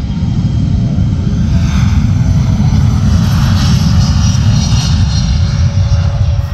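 Private jet's engines running at high power as it rolls down the runway, a loud, steady low rumble with a hissing roar that swells through the middle seconds and eases near the end.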